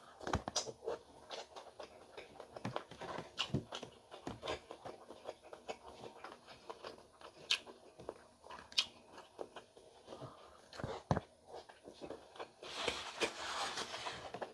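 Close-up eating sounds: chewing and biting on squid adobo in coconut milk, an irregular run of wet smacks and clicks, with a brief louder noisy stretch near the end.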